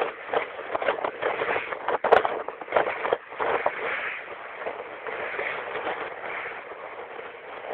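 Strong wind buffeting the microphone on a boat at sea: an uneven rushing noise that surges and drops in irregular gusts, with a sharp knock about two seconds in.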